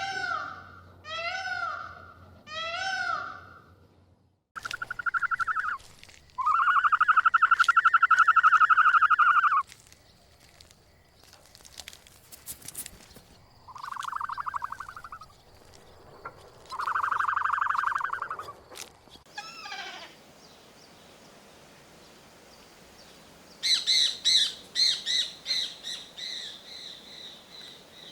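A string of animal calls: a few short rising-and-falling calls at the start, then sheep bleating in several long wavering calls, and near the end a quick run of high bird chirps.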